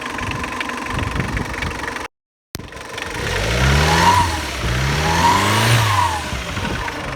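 Toyota Cresta's 2L-TE four-cylinder turbodiesel idling with the usual diesel clatter, then, after a brief cut, revved up twice, its pitch rising and falling back each time. The engine is running after an injection pump replacement, and the knock from the pump side is gone.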